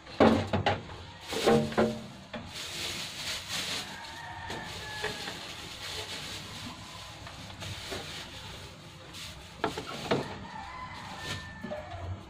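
Cooking oil poured from a plastic jug into a steel wok, a soft running pour, with knocks of the jug and pans being handled near the start and again near the end.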